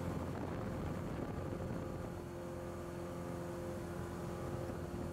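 Cessna 182's newly rebuilt piston engine and propeller droning steadily at climb power, heard inside the cabin.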